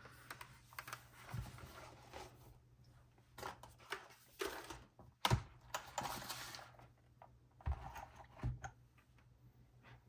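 Melgeek Pixel mechanical keyboard with tactile, non-clicky Pixel T switches: scattered, irregular key clacks and knocks as it is handled and its keys are pressed, with some soft rustling between them. The loudest knock comes about five seconds in.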